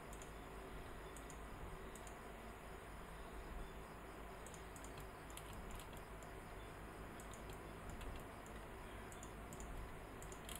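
Faint computer mouse clicks and keyboard key presses, scattered and irregular, over a steady low background hum.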